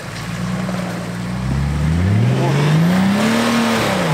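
Off-road 4x4's engine revving under load as it climbs a steep rutted trail, the revs rising steadily over about two seconds, then dropping briefly near the end.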